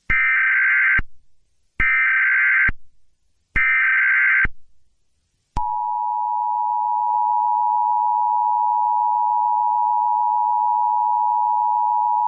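Emergency Alert System tones: three buzzy data bursts of about a second each, the SAME header that opens an alert, followed about five and a half seconds in by the steady two-tone EAS attention signal.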